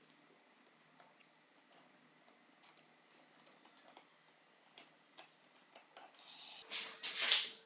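Scattered light clicks and taps of small parts being handled. About six seconds in comes a short, louder rasping hiss, and a steady tone starts up under it near the end.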